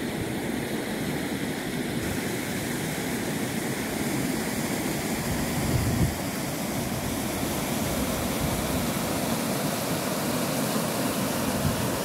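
Shallow creek water rushing steadily over flat rock slabs toward the lip of a waterfall, with a brief low thump about halfway through.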